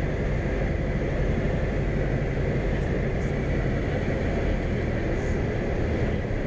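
Robin HR200 light aircraft's piston engine and propeller running steadily, heard from inside the cockpit with constant airflow noise, as the plane floats over the runway on landing.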